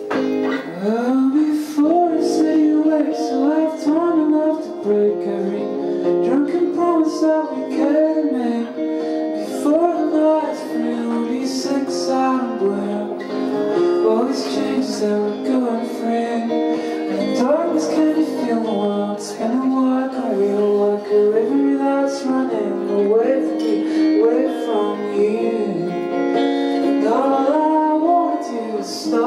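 A man singing live, accompanying himself on an acoustic guitar; the voice carries a continuous sung melody over the guitar.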